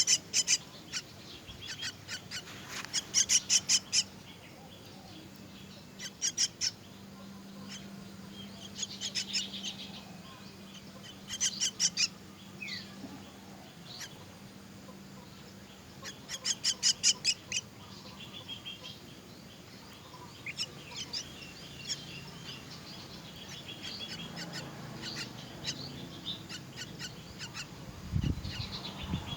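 Myna nestlings begging, giving about six short bursts of rapid, repeated high calls with softer chirps between. A faint steady low hum runs underneath, and a few low knocks come near the end.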